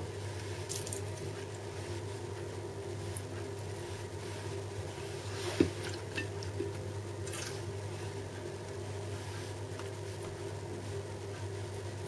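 Raw panga fillets laid onto the perforated tray of a silicone steamer case and pressed flat by hand: soft wet squishes, with one short tap about halfway through, over a steady low hum.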